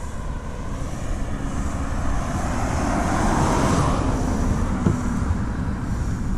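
Outdoor noise: a steady low rumble with a hiss above it, swelling a little about three to four seconds in.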